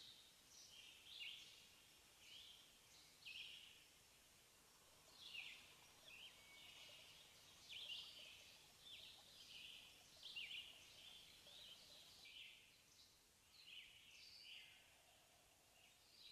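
Faint, quick bird chirps, many falling in pitch, coming irregularly over a quiet background.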